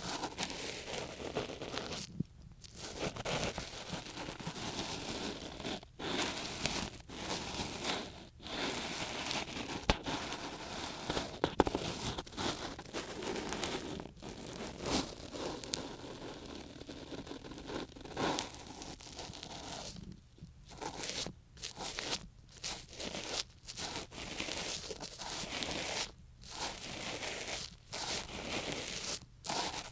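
Ear pick scraping and rubbing in an ear close to the microphone: steady scratchy rustling broken by short pauses, which come more often in the last third.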